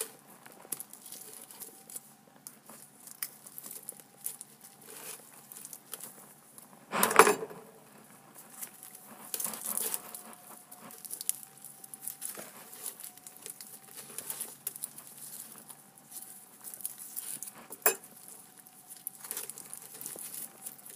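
Aluminium foil crinkling and crackling in irregular bursts as a gloved hand pulls it open and picks inside, with a louder rustle about a third of the way in and a sharp click near the end.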